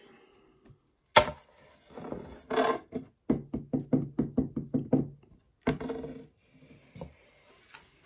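A wooden painting board knocking on a tabletop as it is lifted and set down. There is one sharp knock about a second in, then a quick run of about ten lighter knocks at roughly five a second, and another knock a little after halfway.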